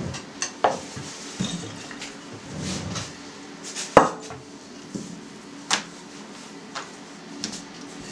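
Scattered knocks and clatters of a wooden rolling pin and a small bowl being handled on a board and table while dough is rolled out and pressed by hand. The loudest knock comes about four seconds in.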